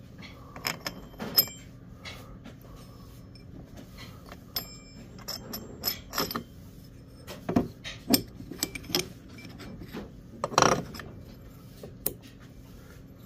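Chainsaw clutch drum and drive sprocket being handled and turned by hand on its shaft bearing. It makes irregular metallic clicks and clatters with brief ringing, and a louder clatter about ten seconds in.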